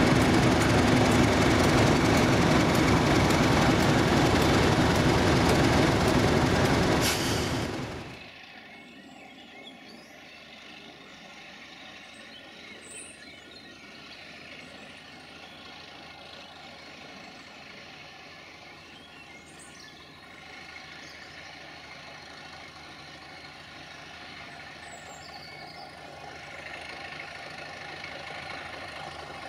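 Class 31 diesel locomotives: a loud rushing noise cuts off abruptly about eight seconds in, leaving a much quieter locomotive engine running with a faint steady hum that swells slightly near the end.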